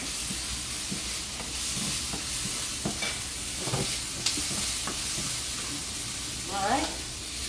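Shrimp frying in a hot frying pan, sizzling steadily, while a spatula stirs them with scattered scrapes and taps against the pan.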